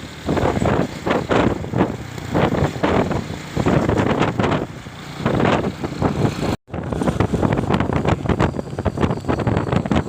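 Wind buffeting the microphone on a moving motorcycle, with road and engine noise underneath, surging irregularly. The sound cuts out for an instant about two-thirds of the way through.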